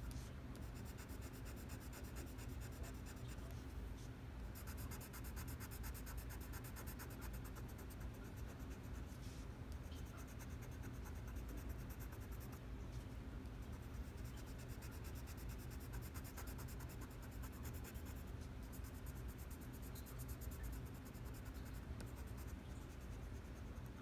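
White colored pencil scratching steadily on art paper in short, repeated strokes as an area is filled in.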